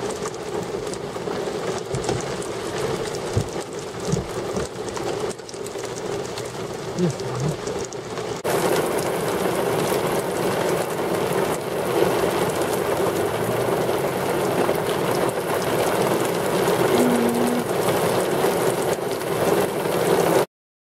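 Steady rain falling, an even hiss that grows louder and brighter suddenly about eight and a half seconds in.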